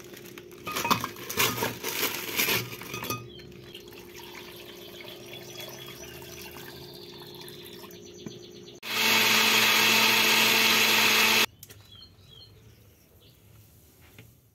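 A few clinks of kitchenware, then a countertop blender running at speed, loud and even, for about two and a half seconds, starting and stopping abruptly.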